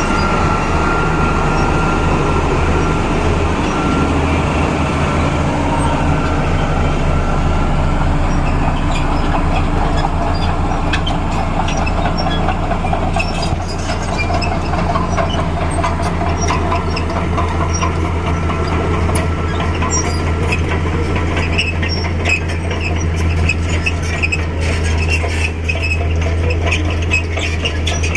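Bulldozer's diesel engine running steadily under load, with the clanking and squeaking of its steel crawler tracks. The clatter gets busier about ten seconds in.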